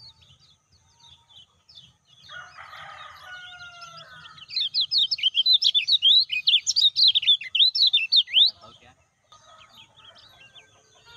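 Kecial kuning (yellow white-eye) singing: soft high chirps, then a loud, fast run of sharp twittering notes lasting about four seconds in the middle. A lower, rougher call sounds briefly a couple of seconds in.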